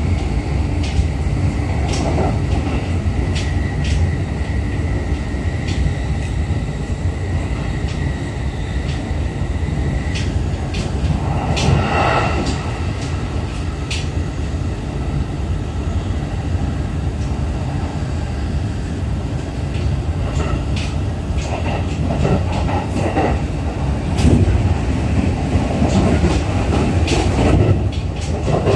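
Running noise heard inside a JR East E531 series electric train car between stations: a steady low rumble of the wheels on the rails, with scattered sharp clicks.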